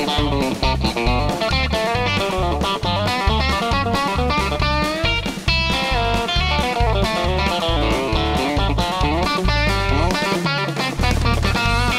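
Suhr T-style electric guitar playing a fast country chicken pickin' line of snappy, separate picked notes, over a backing track with a steady beat. A rising glide in pitch comes about five seconds in.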